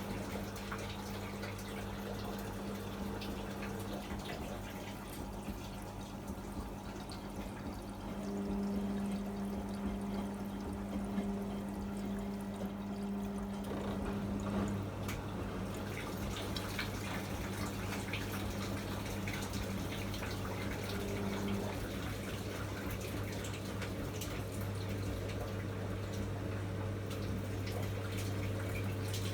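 Miele MedicWash W2585 washing machine running: water splashing and running in the drum over a steady electric hum that changes pitch a few times.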